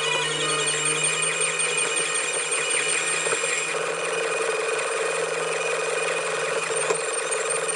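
Background music with held bell-like tones over a fine, fast ticking pattern.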